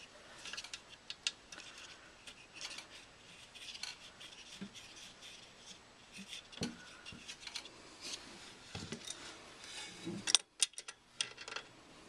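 Small metal clicks, taps and scraping of hand tools on the furnace's pilot and thermocouple fittings as the new thermocouple is fitted and snugged up, with a sharper run of clicks near the end.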